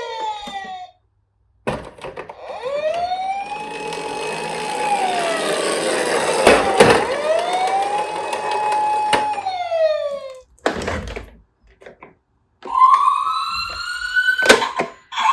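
An emergency-vehicle siren wailing over a steady rushing noise: two cycles that each rise, hold and fall. After a short break, a single rising siren tone starts near the end.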